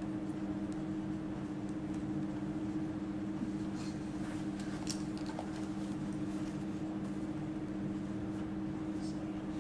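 Steady room hum with two constant low tones, with faint scratches of a marker writing on a whiteboard about four to five seconds in and again near the end.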